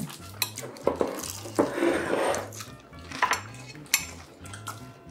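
Eating fried chicken: metal chopsticks clicking against plates and bowls several times, with chewing in between. Faint background music under it.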